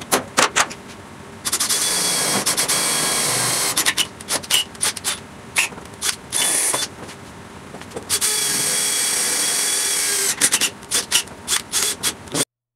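A few hammer taps on a punch marking a steel sheet, then a cordless drill boring holes through the sheet metal in three runs of one to two seconds, with sharp clicks and knocks between them. The sound cuts off suddenly near the end.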